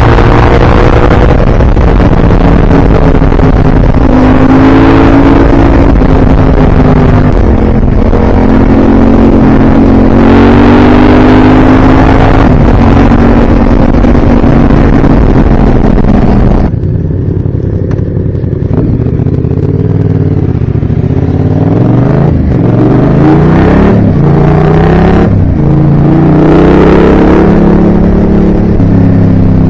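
A vehicle engine running under way, its pitch rising and falling with the throttle, under a loud rushing noise. About two-thirds of the way through the rushing drops away suddenly and the engine pitch climbs again as it accelerates.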